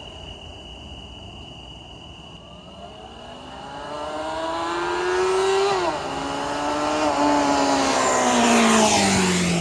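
Suzuki Bandit 600's carburetted inline-four on its stock exhaust, accelerating toward and past the microphone. The engine note climbs, drops sharply once at a gear change about halfway, climbs again, then falls in pitch as the bike goes by near the end, loudest just before that fall.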